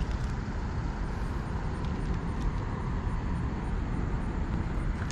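Steady low rumble of outdoor background noise, with a couple of faint clicks.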